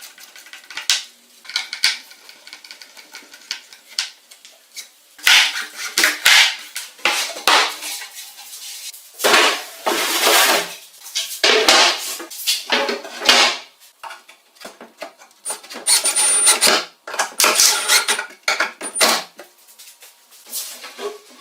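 Hand-tool work: irregular bursts of scraping and clattering, some with a short metallic ring, in three busy spells separated by quieter pauses.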